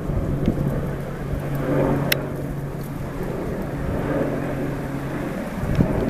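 AH-64 Apache helicopter flying overhead: a steady low drone with the fast chop of its rotor blades, the hum dropping away about five seconds in.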